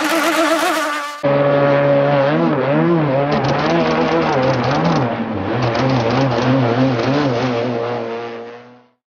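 RC racing hydroplane's motor running at speed, a buzzing note whose pitch wavers up and down as the boat runs. The sound changes abruptly about a second in and fades out near the end.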